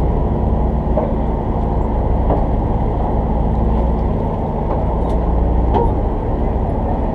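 A fishing party boat's engine running steadily: a loud, even, low drone.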